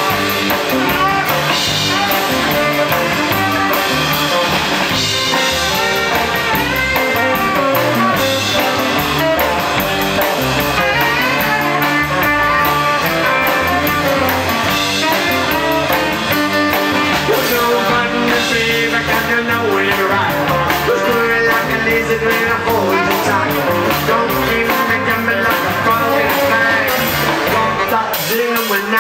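Live rockabilly band playing at full volume: saxophone lead over electric guitar, upright double bass and drum kit, with a steady beat.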